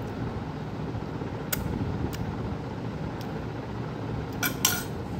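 A child eating noodles off a fork: a few faint clicks, then brief slurping and mouth sounds near the end, over a steady background hum.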